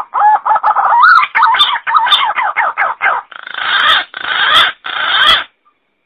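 Green pigeon (punai) calls from a lure recording: a fast run of warbling whistled notes that rise and fall in pitch, then three harsh, drawn-out calls, stopping suddenly about half a second before the end.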